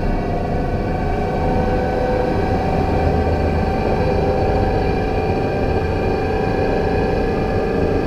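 Alstom Citadis 302 tram running, with several steady whining tones held over a rolling rumble. The uploader finds the noise from motor car M2 strange and does not know its cause.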